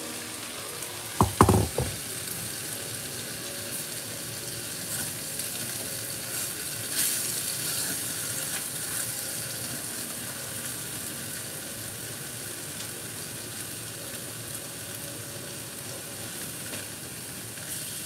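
Tomatoes and peppers sizzling in a Staub cast-iron pot on a gas burner, a steady hiss as they release their juices and start to boil. Two or three sharp knocks about a second in.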